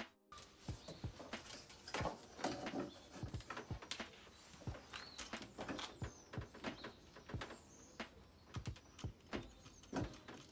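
Hand-pulled hookup cable being drawn through a campervan's body panel into a cupboard: irregular clicks, light knocks and rustling as the cable rubs and taps against the panels.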